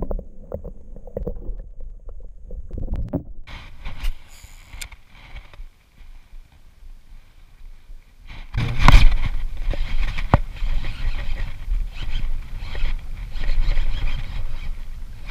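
Muffled, dull water sound for the first three seconds or so, heard with the microphone under water as a largemouth bass is let go. Then the microphone is in the open air, with a low rumble of wind on it and scattered knocks and rustles of handling. The loudest is a thump about nine seconds in.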